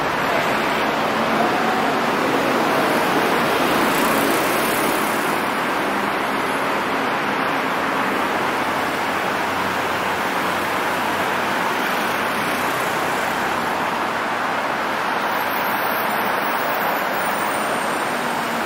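Steady hiss of city traffic on rain-wet streets, an even wash of noise with no distinct events standing out.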